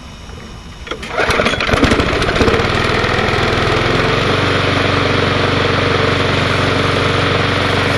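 Propane-fuelled Briggs & Stratton lawn mower engine being cranked over about a second in, catching at about two and a half seconds and then running steadily.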